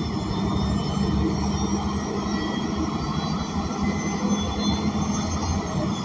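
Cabin noise inside a moving city transit bus: a steady low rumble from the Cummins Westport L9N natural-gas engine, drivetrain and road, with light rattles from the interior.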